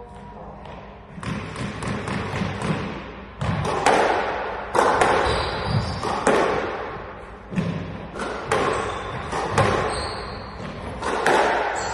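Squash rally: the ball hitting the rackets and the court walls about once a second, each hit echoing in the enclosed court.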